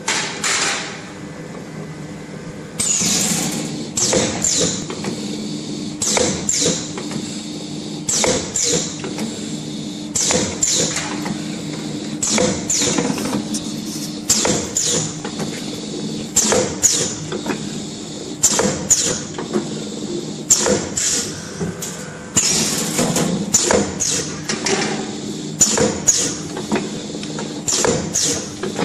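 Wire-cut cookie depositing machine running: sharp mechanical clacks repeating one or two times a second over a steady motor hum.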